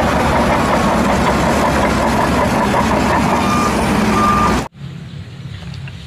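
Bulldozer engine sound running loud and steady, with two short reversing beeps near the end. It cuts off suddenly after about four and a half seconds, and a few light clicks follow.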